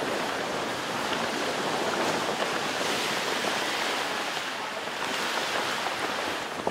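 A giant sheet of paper, about 15 by 15 metres, rustling steadily as several people lift and move it: a continuous rushing noise that cuts off suddenly near the end.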